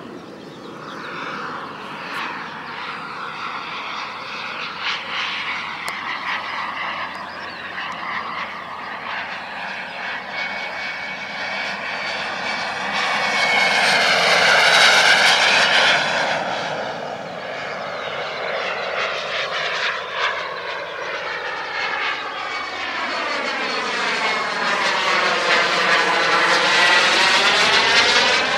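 Turbine engine of a radio-controlled model de Havilland Vampire jet in flight, its whine and rush rising and falling as it makes passes. It is loudest as it sweeps close about halfway through and again near the end.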